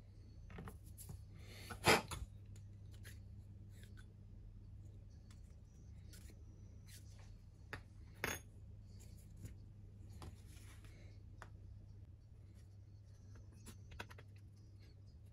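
Small workbench handling noises: light clicks and knocks as a wooden pen blank, brass tube and stick are picked up and set down, the sharpest knock about two seconds in and another around eight seconds. A steady low hum runs underneath.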